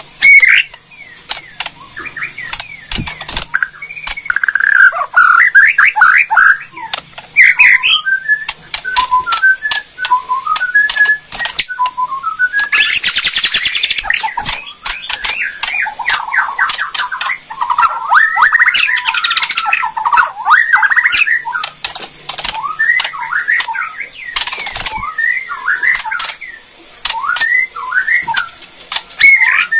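Caged white-rumped shama (Bornean 'murai borneo') singing loudly in quick, varied whistled phrases mixed with harsh rattling 'kretekan' chatter, with a dense harsh burst about halfway through. This rattling call is used by keepers to provoke other shamas into answering. Sharp clicks and wing flutters come from the bird hopping about the cage.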